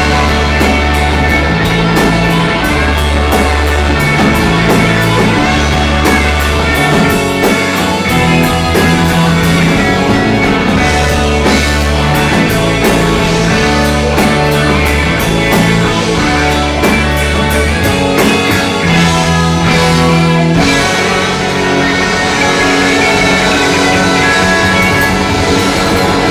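Live rock band playing loud: electric guitar and drum kit over deep bass notes that change every second or two.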